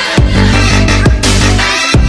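Electronic music with a heavy bass line and a kick drum striking about once a second.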